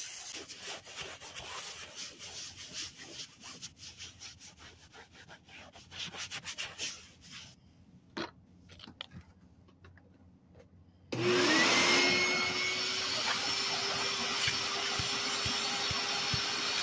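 Rapid, irregular scratchy rubbing strokes for the first several seconds, then a lull. About eleven seconds in, a wet/dry shop vac switches on: its motor whine rises quickly to a steady pitch, and it runs loudly and steadily.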